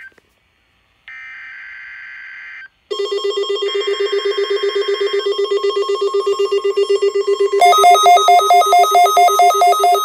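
NOAA Weather Radio Required Weekly Test coming in on a Midland weather alert radio. A short burst of SAME digital header tones comes first. About three seconds in, the radio's rapidly pulsing electronic alert tone starts, with a second data burst over it. Near the end the alert switches to a louder, higher pulsing pattern.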